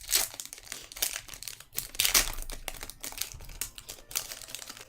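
Foil booster-pack wrapper being torn open and crinkled, a run of irregular crackles and rustles.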